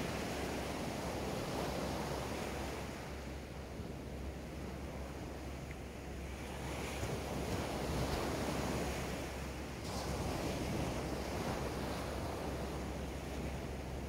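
Small ocean waves breaking and washing up onto a sandy beach, a steady surf hiss that swells and eases with each wave, loudest a little past halfway through.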